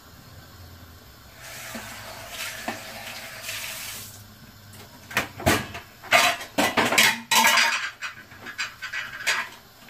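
Soaked rice swishing out of a plastic colander into a pot. Then several seconds of dishes and utensils clattering, with sharp knocks in quick succession.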